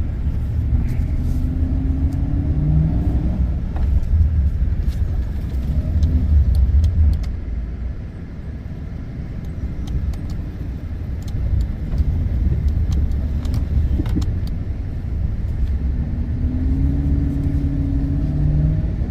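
A snow-plow vehicle's engine labouring as it pushes through thick, packed snow, revving up with a rising pitch twice, about a second in and again near the end.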